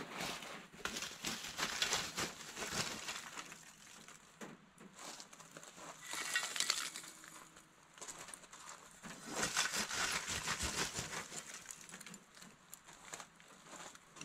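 Lumps of charcoal rattling and clinking as they are scooped from a sack with a small metal shovel and tipped onto a charcoal fire, in three or four bouts of clatter.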